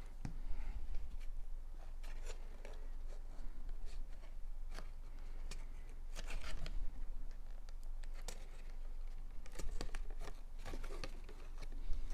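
Cardstock pieces being handled and pressed together while gluing tabs: scattered light rustles, taps and small clicks of paper, over a steady low hum.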